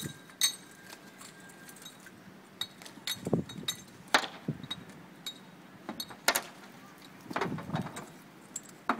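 Irregular clinks, clicks and knocks of a trunk-mounted bike rack's metal frame, hooks and strap buckles against a car's rear hatch as the rack is lifted on and fitted. The sharpest knocks come about four and six seconds in.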